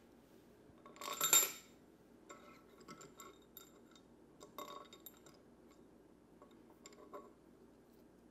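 Steel socket and extension clinking against the aluminium cylinder head as a head bolt is set in its hole: a short metallic clatter about a second in, then a few lighter clicks and taps.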